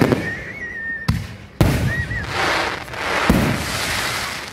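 Aerial fireworks shells bursting overhead: four sharp bangs, one at the start, two close together about a second in, and one past three seconds. Each bang is followed by about a second of crackling hiss as the stars burn out. A thin wavering high whistle sounds between the first bangs.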